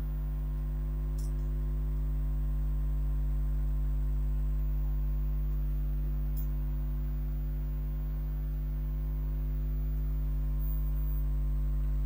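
A steady, unchanging low electrical hum with a stack of overtones above it. It has the sound of mains hum.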